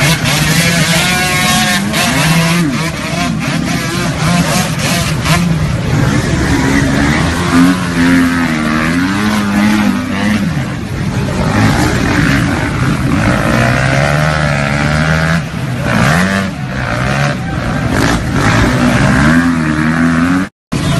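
Several off-road dirt bike engines revving hard and unevenly, pitch rising and falling as their rear wheels spin in deep mud, the bikes bogged down. The sound cuts out for a moment near the end.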